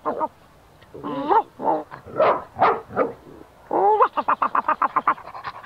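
Cartoon dog vocal effects: a whining call about a second in, then a few short yips, then fast rhythmic panting, about ten pants a second, from about two-thirds of the way through.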